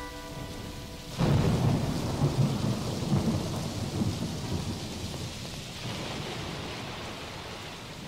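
Thunder and steady rain, the storm recording that closes the song. A held music chord stops about a second in as a loud thunder rumble breaks in, then slowly dies away under the rain.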